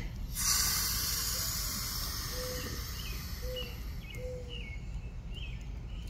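Water hissing through the camper's outdoor shower faucet as the valve is opened and the temperature adjusted; it starts abruptly and fades away over about four seconds. Birds chirp faintly in the background.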